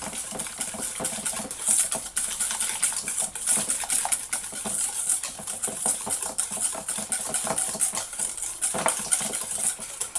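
Wire whisk beating eggs into creamed butter and sugar in a stainless steel bowl: rapid, steady clicking and scraping of the wires against the metal.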